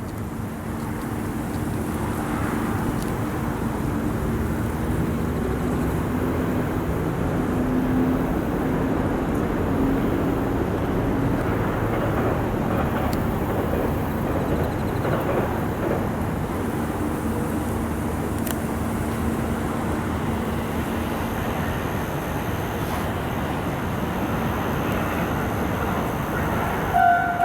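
Steady rumble of passing vehicles with a low engine hum. Right at the end a Japanese railway level-crossing bell starts ringing, its two-tone alarm clanging in quick pulses as the crossing begins to close for a train.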